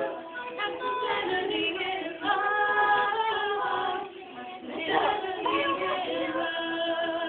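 Small group of teenage students singing a cappella, female voices leading, in held notes with short breaks between phrases about two and four seconds in.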